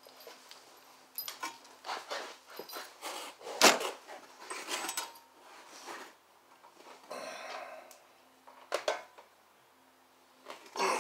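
Tools and metal parts clinking, knocking and scraping as a man works by hand on a Harley-Davidson Dyna motorcycle, fitting a new battery. One sharp knock stands out a little under four seconds in, and a short buzzy rasp comes about seven seconds in.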